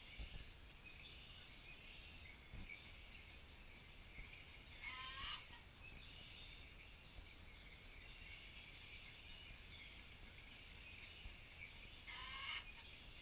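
Faint short animal calls, twice, about seven seconds apart, each a quick rolling call lasting about half a second, over a steady high chirring in the background.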